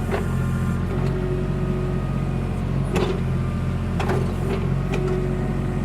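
Backhoe's diesel engine running steadily, with a few short knocks: one at the start, one about three seconds in and three close together about a second later.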